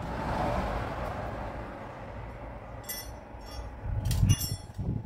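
Metal clinking and a few low knocks, as of tools or steel parts being handled on farm machinery: a short run of clicks about three seconds in, then a louder cluster of clinks and knocks a little after four seconds, over a steady low hum.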